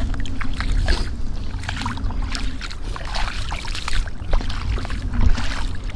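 Irregular splashing and sloshing of footsteps wading through shallow water over sand, with a low wind rumble on the microphone.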